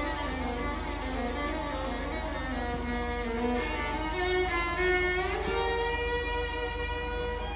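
Youth string orchestra of violins, violas and cellos playing held notes together, with a quick upward slide in pitch about five seconds in.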